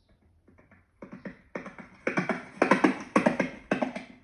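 Recording of a horse galloping: a rhythmic run of hoofbeats that starts about a second in and grows louder.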